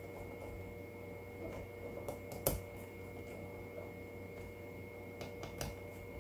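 Light clicks and taps of a small screwdriver and parts being handled on a keyboard's circuit board, with a sharper click about two and a half seconds in and a few more near the end, over a steady faint hum.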